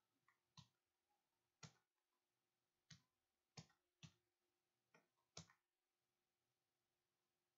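Computer keyboard keys pressed one at a time: about eight separate clicks over some five seconds, with pauses between them.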